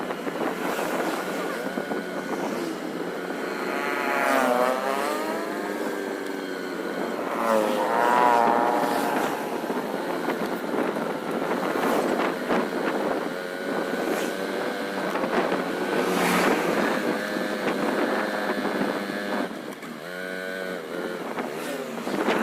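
Road traffic: vehicle engines running, with engine sounds rising and falling in pitch a few times as vehicles rev or pass.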